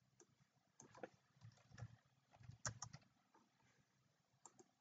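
Faint computer keyboard keystrokes and a few clicks, scattered irregularly, as a short title is typed.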